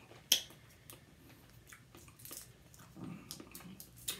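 Candy wrapper crinkling as a piece of Now and Later chewy candy is unwrapped by hand. There is one sharp crackle about a third of a second in, then faint scattered crinkles.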